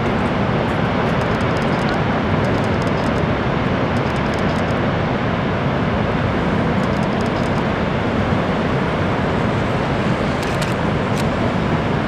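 Niagara Falls' water pouring over the brink: a loud, steady rush without a break.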